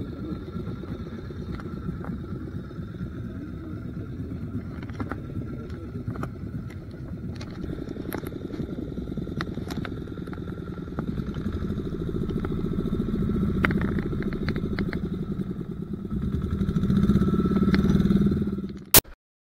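A small fishing boat's engine running steadily, with a few light clicks and knocks over it. It grows louder a couple of times, then cuts off suddenly after a sharp click near the end.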